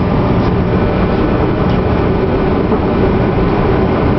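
Steady, loud low rumble of engine machinery with a faint even hum running through it.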